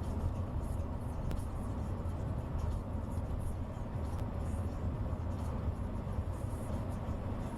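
A vehicle driving along: a steady low rumble of engine and road noise, with a few faint ticks.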